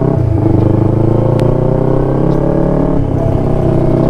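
Motorcycle engine running under way, its pitch climbing slowly, dropping suddenly about three seconds in and climbing again.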